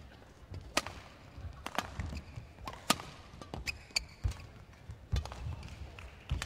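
Badminton rally: rackets striking the shuttlecock in sharp cracks about once a second, with the players' footsteps thudding on the court between hits.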